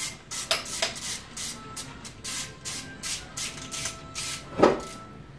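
Hand ratchet worked in quick back-and-forth strokes on the engine, each stroke a short rasping burst of clicks, about two or three a second, with one louder metal clank near the end.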